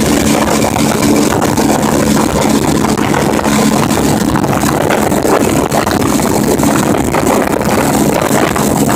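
Motorcycle engine running steadily at cruising speed, mixed with heavy, steady wind rush on the microphone.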